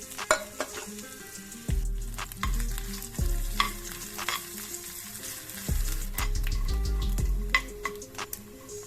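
Jackfruit fritter batter sizzling as it fries in hot oil, with sharp clicks and taps of a utensil against the pan.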